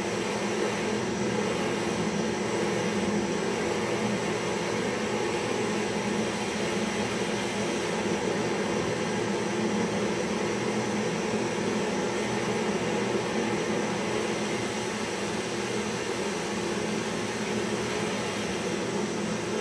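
Handheld butane gas torch flame burning with a steady, unbroken rushing hiss.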